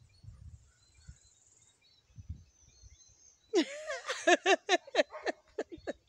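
Person laughing: a burst of quick, high-pitched, repeated 'ha' sounds that starts a little past halfway.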